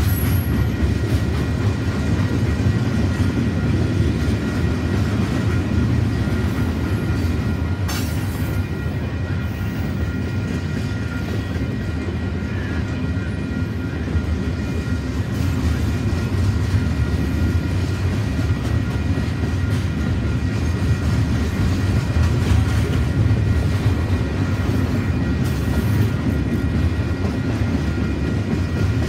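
Freight cars (tank cars and a covered coil car) of a CP freight train rolling past at steady speed, a continuous rumble of steel wheels on rail. Faint steady high tones ride over it, with a single sharp click about eight seconds in.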